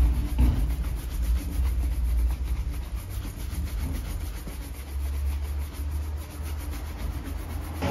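Bristle shoe brush scrubbed quickly back and forth over the leather upper of a Red Wing boot, a fast, even run of scratchy strokes. A steady low rumble runs underneath.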